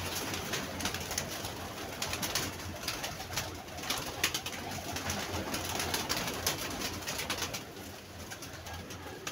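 Domestic pigeons in a loft cooing, with repeated short flurries of wing flapping as the birds move about and are handled.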